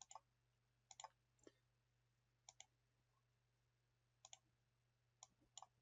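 Faint, scattered clicks of a computer mouse and keyboard, about a dozen in all, several in quick pairs like a button pressed and released.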